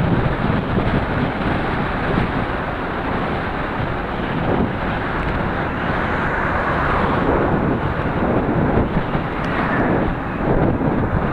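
Wind buffeting an action camera's microphone on a bicycle moving at about 33 km/h, a steady rushing noise.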